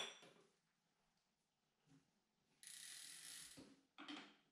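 Hand tools working on a BMX bike's cranks and bolts: a sharp metal clack at the start, a steady rasping noise lasting about a second around three seconds in, and a short clatter near the end.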